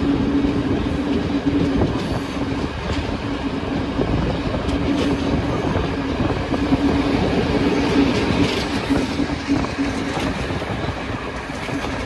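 Train running on the line, wheels clattering over the rail joints over a steady low tone.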